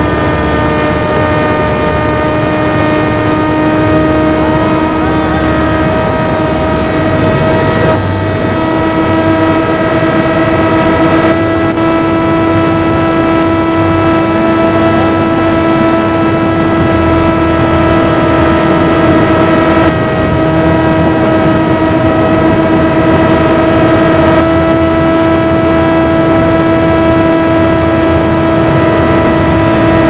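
Brushless outrunner motor and 10x6 propeller of a Volantex Ranger EX 757-3 RC plane, heard from its onboard camera: a steady whine whose pitch shifts slightly a few times as the throttle changes, over loud rushing wind noise from flying in very strong wind.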